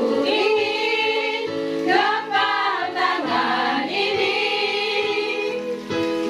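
Women's choir singing a slow, drawn-out phrase of an Indonesian patriotic song, with steady held notes sounding underneath.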